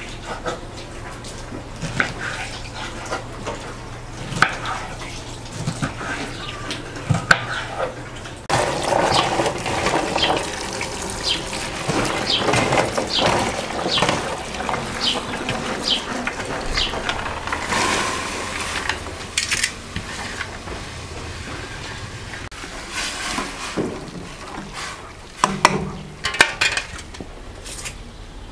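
A knife chops green beans on a wooden cutting board in short, quick strikes. About eight seconds in, a tap starts running into a bowl of chopped beans in a stainless steel sink while hands swish and rinse them. Near the end come a few sharp knife clicks as an onion is cut.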